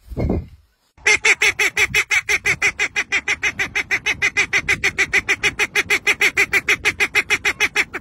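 A white domestic duck quacking in a long, fast, even run of about seven quacks a second, starting about a second in. A short low sound comes just before it.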